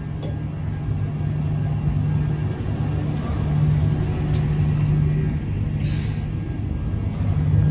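Semi-truck diesel engine idling, a steady low hum that swells louder in the middle and again near the end.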